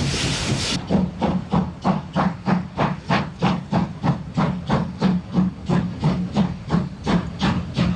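DR class 65.10 steam tank locomotive 65 1049 working a freight train: sharp, evenly spaced two-cylinder exhaust beats, about three to four a second, with steam hissing from its open cylinder cocks. For the first moment there is only a steady hiss from inside the cab.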